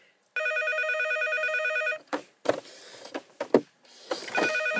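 Electronic office desk phone ringing with a warbling electronic trill: one ring of about a second and a half, a short gap with a few small knocks, then a second ring starting near the end.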